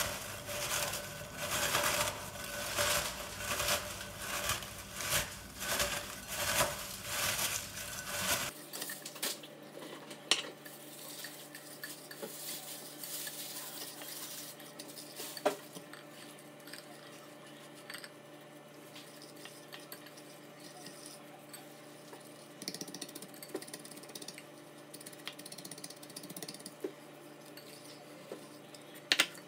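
Kitchen food-preparation sounds. For about eight seconds come regular scraping or crunching strokes, roughly one a second. Then it goes quieter, with a steady low hum and occasional light clinks of utensils on a dish.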